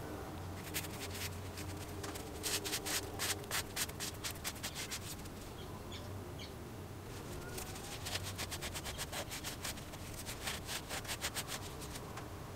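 Terry-cloth towel rubbed briskly over a spark plug's insulator and metal shell, a dry scratchy wiping. It comes in two spells of quick strokes, about four a second, with a pause of roughly two seconds between them.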